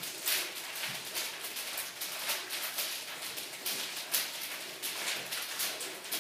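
A stack of eleven hula hoops spinning around a hooper's body, the hoops swishing and clattering against each other in an uneven beat of about two strokes a second.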